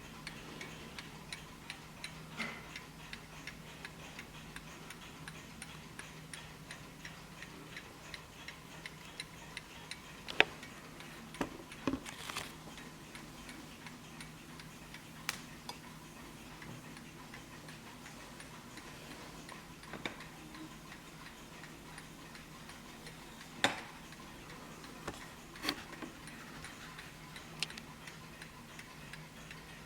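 Hermle 8-day mechanical mantel clock ticking steadily, a few even ticks a second. A handful of louder, sharper clicks or knocks stand out over the ticking, the loudest about ten seconds in.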